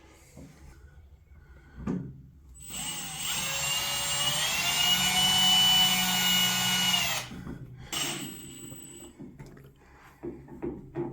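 Cordless drill driving a screw: a knock, then the motor whines up in pitch and runs steady for about four seconds before stopping, followed by light handling clatter.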